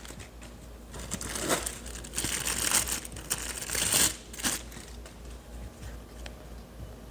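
Packaging crinkling and rustling as an action figure is unboxed, in a run of bursts for a few seconds, then quieter handling near the end.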